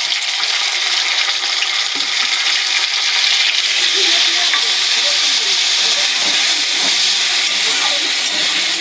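Cubed potatoes frying in hot oil in a kadhai with freshly added wet garlic and mustard paste: a loud, steady sizzle that swells over the first few seconds. A spatula stirring the pan adds faint scrapes.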